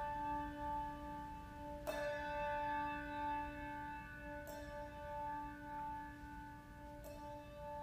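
A hand-struck chime bell rung for the chiming of the hour: three strokes about two and a half seconds apart, each ringing on in a long tone that is still sounding when the next stroke comes.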